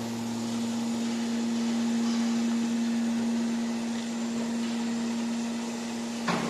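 Hydraulic scrap metal baler's power unit (electric motor driving the hydraulic pump) running with a steady, even-pitched hum. A knock is heard near the end, when the hum stops.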